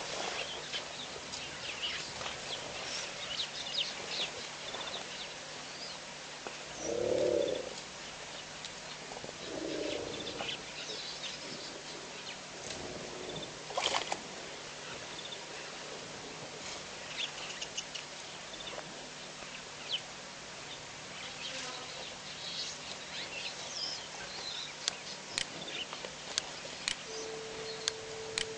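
Wild birds chirping in short high calls over a steady outdoor hiss, with two short low calls from a larger animal about seven and ten seconds in.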